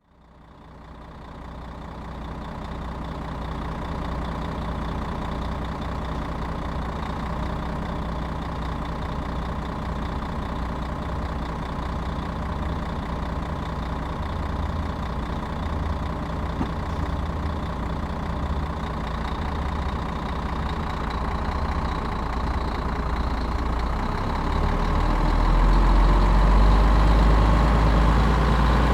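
Bus engine idling steadily, fading in over the first couple of seconds, then growing louder and deeper about 25 seconds in.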